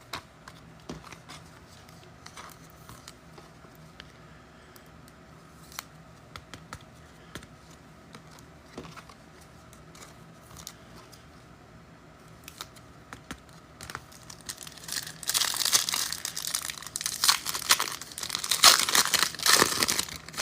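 A foil trading card pack being torn open and its wrapper crinkled, loud and crackling from about 14 seconds in; before that only faint clicks of cards being handled.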